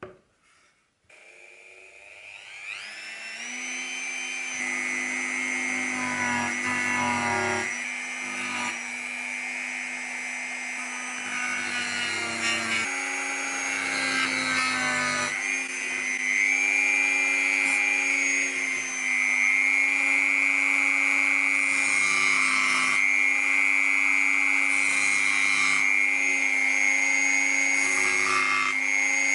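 Handheld rotary tool spinning up about a second in, its whine rising in pitch, then running steadily with a small bit working the wooden frame of a miniature cabinet.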